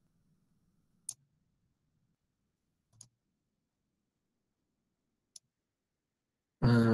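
Three short, faint clicks about two seconds apart over a quiet room, from slides being advanced on a computer; a man starts speaking near the end.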